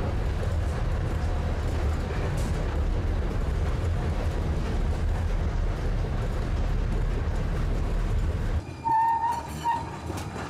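MUNI Metro light-rail train running with a steady low rumble that cuts off abruptly near the end, followed by a few short high-pitched tones.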